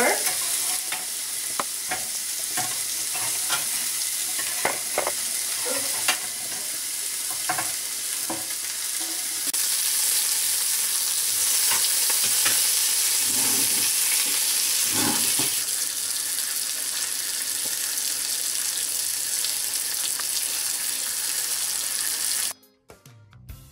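Burger patties sizzling in a hot ridged griddle pan, a steady hiss broken by short clicks and scrapes of tongs and a fork on the pan as the burgers are turned. The sizzle cuts off suddenly near the end.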